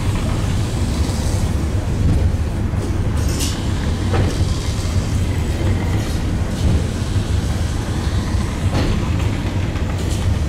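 Eizan Cable funicular car running uphill on its rails, heard from inside the car: a steady low rumble with a few sharp clacks at uneven intervals.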